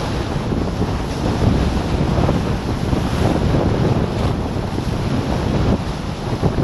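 Wind buffeting the action camera's microphone while kiteboarding at speed, over the rush of the board cutting through choppy water, with a few brief splashes.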